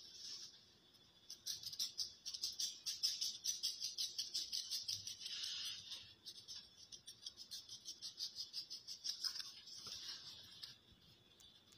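Knife cutting along a raw salmon fillet in quick short strokes, a fast crisp scratching about seven or eight times a second that starts about a second in and dies away near the end.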